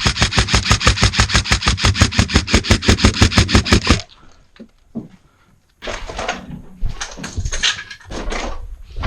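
Airsoft electric gun firing one long full-auto burst of about nine shots a second, stopping abruptly about four seconds in. A few softer, irregular noises follow.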